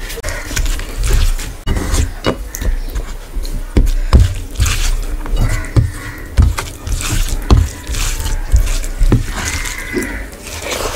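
Fingers squishing and mixing rice with curry gravy on a steel plate: wet squelching with irregular clicks and dull knocks.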